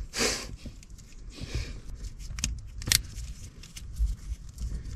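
Light clicks and rattles of fingers working a plastic automotive wiring connector as its terminal keeper is pushed back in, with one sharp click just under three seconds in. A short hiss near the start and a dull bump about four seconds in.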